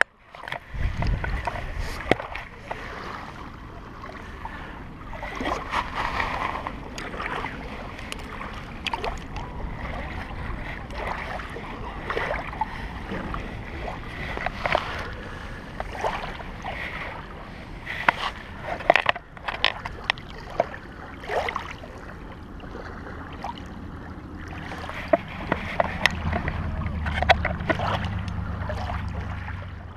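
Shallow lake water splashing and sloshing with scattered knocks and clicks as a freshly caught pike is handled and released at the shore. A low rumble builds near the end.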